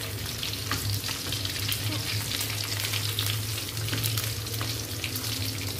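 Pieces of spiced, pre-cooked chicken (ayam ungkep) sizzling and crackling as they fry in hot oil in a steel wok, while a slotted metal spatula turns them. A steady low hum runs underneath.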